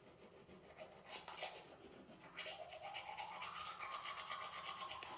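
Teeth being brushed with a toothbrush: quick, repeated scrubbing strokes that grow louder after about a second. A tone rises in pitch behind them and then holds steady.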